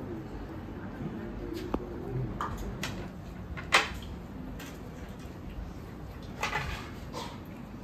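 Cutlery clinking against plates and small steel bowls at a meal: a few scattered sharp clinks, the loudest a little under four seconds in, with a short clatter of them about six and a half seconds in, over a low room murmur.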